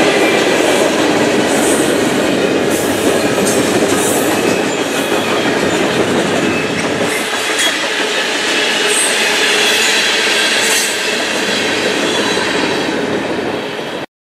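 Freight train cars rolling past at track side: steady rumble of steel wheels on rail with clickety-clack over the joints and brief high squeals now and then. It cuts off suddenly near the end.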